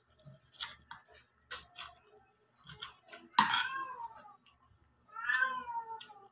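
Domestic cat meowing twice, each a long call that falls in pitch, about three and a half seconds in and again near the end, with scattered short clicks and taps between.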